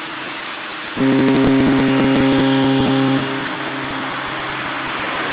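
Naval warship typhon horns sounding a loud, steady blast of several pitches together. The blast starts about a second in and lasts about two seconds, over a steady hiss.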